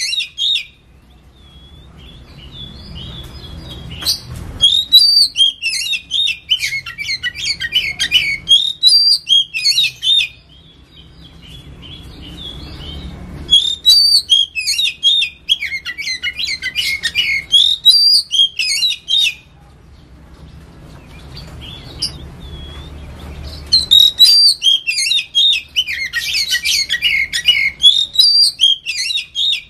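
Oriental magpie-robin singing in three long bouts of rapid, varied high notes, each about six seconds long, with short pauses between them.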